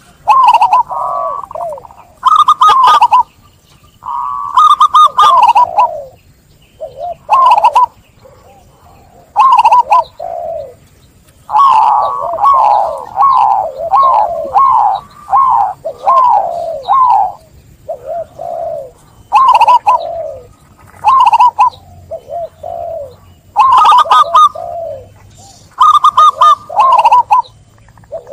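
Zebra dove (perkutut) in full song: a string of quick coo phrases, each a fast run of rising-and-falling notes, with short pauses between them.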